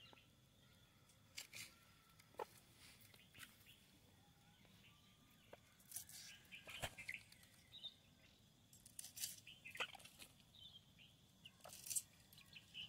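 Near silence: quiet outdoor ambience with scattered faint clicks and a few brief, faint bird chirps.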